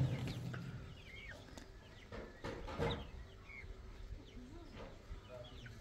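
Domestic hens clucking and chicks peeping in scattered short calls.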